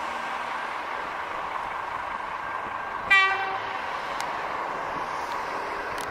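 V/Line VLocity diesel multiple unit sounding one short horn blast on departure, about half a second long, roughly midway through, over steady background noise.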